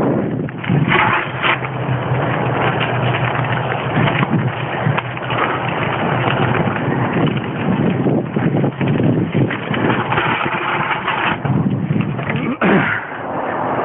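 Mountain bike riding fast down a dirt trail: a steady rush of wind noise on the taped-on phone's microphone mixed with the bike's constant rattle and crackle over roots and leaf litter. It sounds dull and muffled, with nothing in the upper treble.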